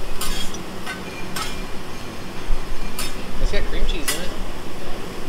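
Several sharp clinks of metal utensils against plates and the steel griddle, over a low steady hum and faint voices.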